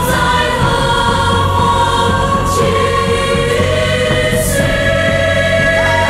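A choir singing a slow song over instrumental backing, with long held notes.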